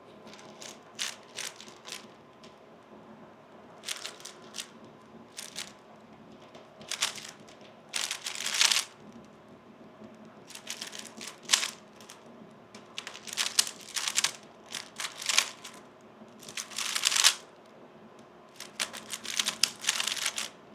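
3x3 Rubik's speedcube being turned fast in a timed solve: runs of quick plastic clicking and clacking, with short pauses between groups of turns. A sharper knock comes at the very end.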